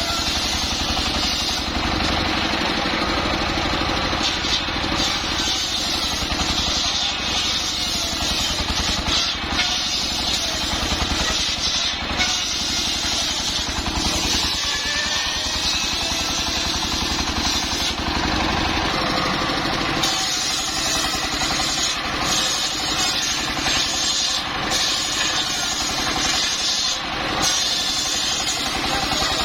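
Engine of a homemade circular sawmill running steadily.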